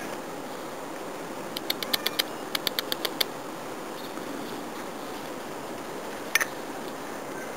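Whippet puppy moving about inside a nylon play tunnel: a quick run of light clicks and scratches about a second and a half in, and one more click near the end, over a steady background noise.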